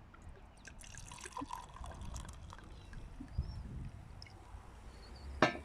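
Sparkling Prosecco being poured into a glass, fizzing with fine crackles. A single sharp knock comes near the end.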